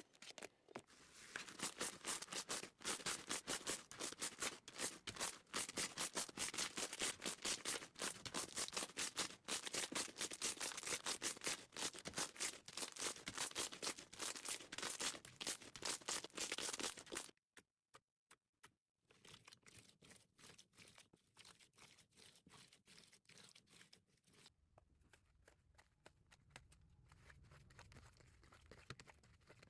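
Slime being squished by hand, with a dense run of rapid crackling pops and clicks. It stops abruptly about seventeen seconds in, and after a short pause fainter, sparser clicks follow.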